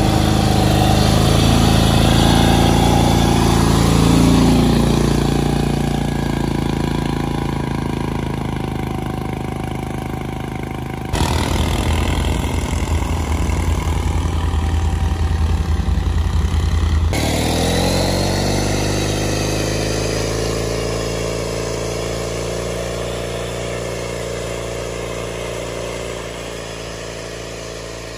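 Engines of riding lawnmowers fitted with ATV snow tracks, running under load as the mowers churn through deep snow. The pitch rises as they rev. In the middle there is an abrupt change to a deeper, louder rumble for several seconds, then another rev up, and the sound fades as the machines pull away.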